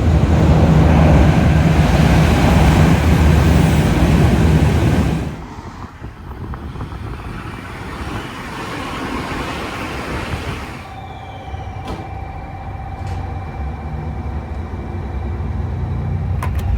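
Train sounds in a run of short cuts: a train running loudly with a low, steady drone for about five seconds, then a quieter rumble, then a quieter stretch with a steady tone and a couple of sharp clicks.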